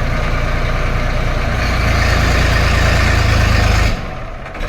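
Massey Ferguson 1035 three-cylinder diesel tractor engine running, rising in level from about two seconds in, then dropping off suddenly near the end.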